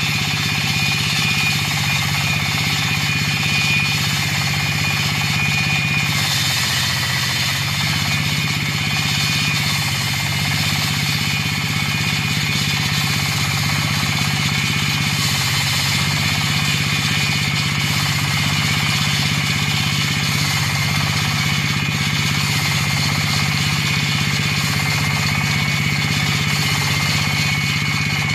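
A 38 HP diesel engine drives a tracked floor saw, running at a steady speed, while its segmented diamond blade grinds through wet concrete. The engine drone is steady, with a high steady whine over it.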